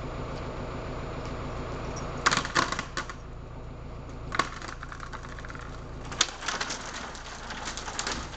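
Wood and branches of an ailanthus (tree of heaven) cracking and snapping as a cut section gives way, pushed over by hand, and crashes through the twigs onto the fence. There is a burst of sharp cracks about two seconds in, a single crack a couple of seconds later, and a longer run of cracking and snapping near the end.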